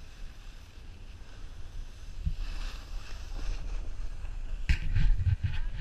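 Skis sliding over packed snow with wind buffeting the action camera's microphone as a steady low rumble; the scraping hiss grows about two seconds in, and near the end a quick cluster of sharp knocks and thumps is the loudest part.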